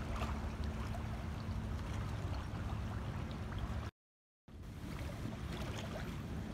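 Steady wind rumbling on the microphone, with a faint steady hum underneath. The sound drops out completely for about half a second a little past the middle.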